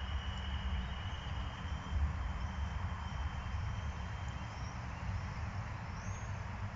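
Outdoor ambience by a pond: a steady low rumble on the microphone, a thin steady high tone that fades out about halfway, and faint short high bird chirps in the second half.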